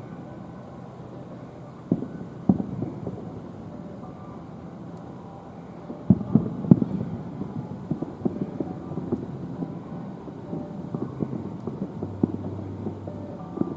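Fireworks bursting at a distance: a couple of deep booms about two seconds in, a tight cluster of booms around six to seven seconds, then a run of smaller pops and bangs.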